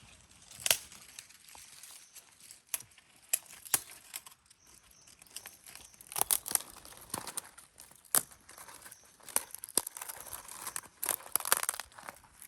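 Crinkling and rustling of camping gear being handled, with scattered sharp clicks and ticks. The rustling swells twice, about halfway through and again near the end.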